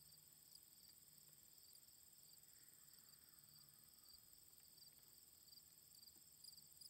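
Faint, steady chirping of crickets, heard over near silence.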